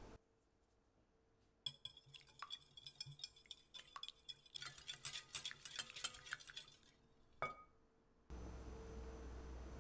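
Stainless wire balloon whisk lightly beating eggs in a glass mixing bowl, its wires clinking rapidly against the glass. The clinking starts about two seconds in, is densest in the middle, and ends with a single tap about a second before faint room hiss takes over.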